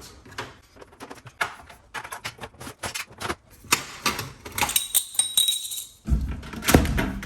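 Irregular clicks, clinks and rattles of small plastic and metal parts being handled, as old light fittings are worked loose. A brief high whine sounds about five seconds in, and low thuds follow near the end.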